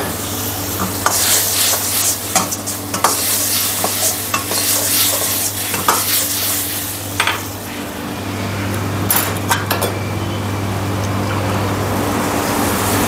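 Chicken pieces sizzling in onion-and-gravy masala in a steel wok while a steel ladle stirs and scrapes the pan, with repeated clinks of the ladle on the wok, thickest in the first half and again about nine seconds in. A steady low hum runs underneath.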